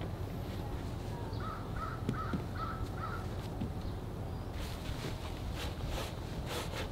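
A bird gives a quick run of about six short, evenly spaced calls that stop about three seconds in. Light clicks and scrapes follow over a steady low rumble.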